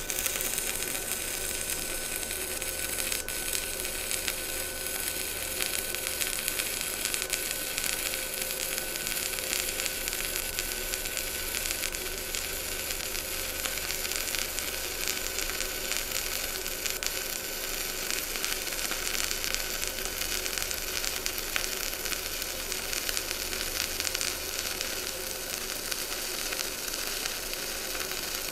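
Stick-welding arc from a NANYA mini inverter welder running a bead on steel plate: a steady crackling sizzle that starts as the arc is struck right at the beginning, with a faint steady whine beneath it.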